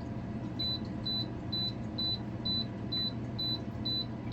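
Blackstone E-Series electric pizza oven's control panel beeping as its temperature button is pressed repeatedly, eight short high beeps at about two a second, each one a step up in the set temperature. A steady low hum runs underneath.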